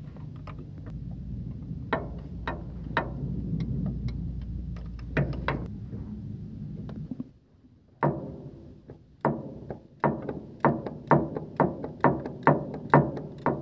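Ratchet wrench working the fuel-injection-pump mounting bolts, first with a few scattered clicks over a steady low hum, then, after a short break, a steady run of sharp clicks at about two to three a second.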